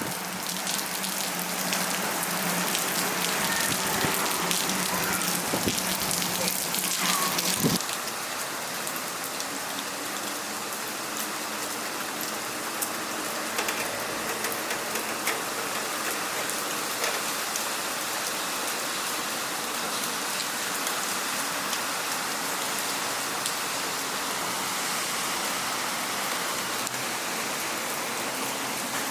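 Heavy hurricane rain falling steadily, a dense hiss with the patter of individual drops. A low steady hum runs under it and stops about eight seconds in, where the sound drops slightly in level.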